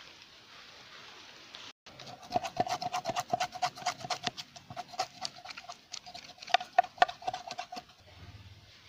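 Knife scraping the scales off a snakehead (murrel) fish on a wooden board: quick, sharp scraping strokes, several a second, starting about two seconds in and stopping near the end, with a steady tone sounding beneath them.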